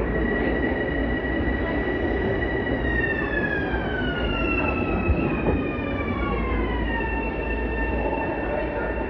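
LIRR electric multiple-unit train moving along a station platform over a steady rumble, with a high electric propulsion whine that holds level, then slides down in pitch over about four seconds as the train slows, then levels off.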